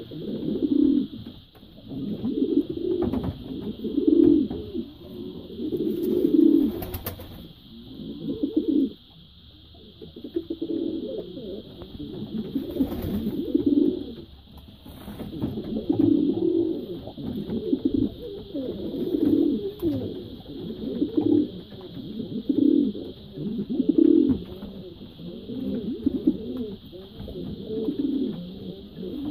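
Show racer pigeons cooing in low rolling phrases that repeat about every one to two seconds, with a short break about nine seconds in. A steady faint high-pitched hum runs underneath.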